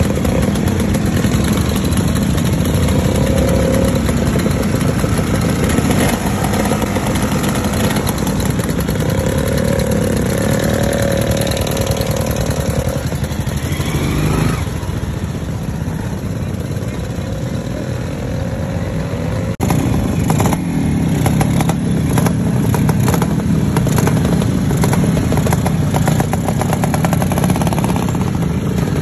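Several vintage motorcycle engines running together, idling and revving, with one rising rev about halfway through and a rapid clatter of exhaust beats in the second half.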